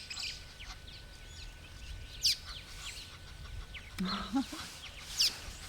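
Wild birds calling: scattered short, high-pitched sweeping chirps, the sharpest about two seconds in and again near the end, with a brief lower call about four seconds in.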